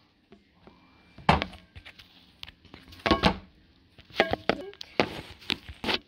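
Handling noise on a phone microphone: a string of irregular sharp knocks and taps as the phone is moved and bumped.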